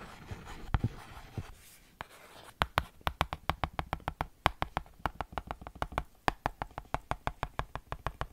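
Writing on a plastic writing tablet held close to the microphone: faint scratching at first, then from about two and a half seconds in a quick, even run of clicking strokes, about seven a second.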